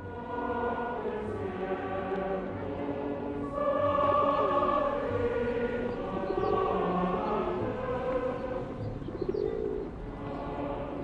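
Background music with a choir singing held, layered notes.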